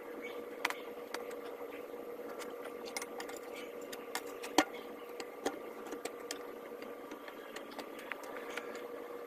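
Scattered light clicks and knocks over a steady hum with a faint fixed tone, with one sharper knock about four and a half seconds in.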